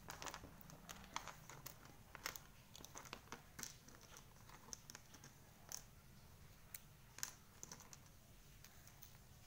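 Small craft embellishments (beads, ladybug and letter shapes) clicking and rattling faintly as fingers sort through them in a small dish and set them down on the tabletop: a scattering of light, irregular clicks.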